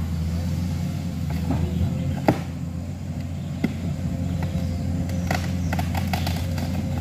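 Komatsu PC210 excavator's diesel engine running steadily under load as it crawls through deep mud, with a steady high whine over the engine note. A sharp knock about two seconds in and a run of clanks near the end.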